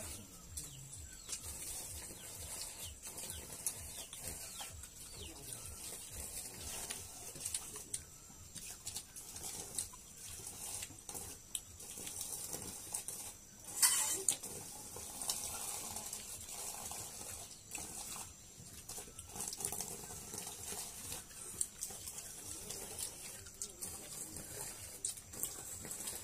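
People eating by hand from steel bowls: chewing, slurping and small clicks of utensils, over a steady hiss, with one sharper clink about halfway through.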